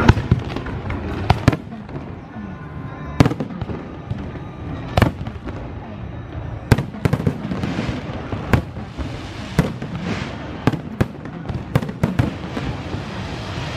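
Aerial fireworks shells bursting in a string of sharp bangs, a second or two apart at first and coming faster, about two a second, in the second half.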